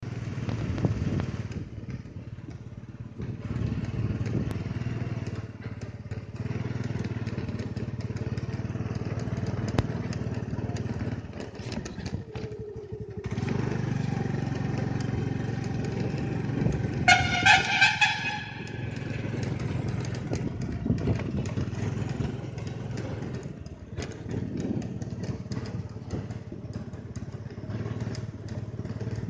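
Motorbike engine running steadily while riding at low speed. A short high-pitched beep sounds about two-thirds of the way through.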